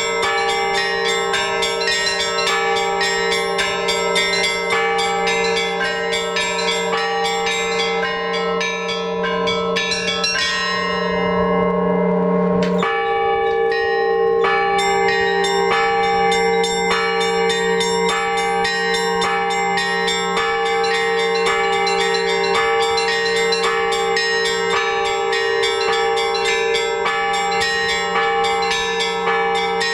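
Orthodox church bells rung by hand, several at once: quick, rhythmic strikes of the small bells over the long hum of the big bells. About ten seconds in the small bells stop for a couple of seconds, leaving the big bells humming, then come back in with a sharp stroke.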